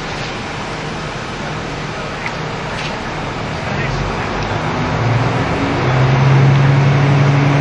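Onboard running sound of a KiHa 75 diesel railcar: a steady engine drone with rail noise, until about five seconds in the engine note grows stronger and louder as the train accelerates away from a station stop.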